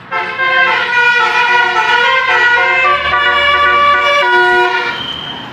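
Basuri multi-tone 'telolet' horns playing a tune, several notes sounding at once and changing in quick steps, then stopping about five seconds in.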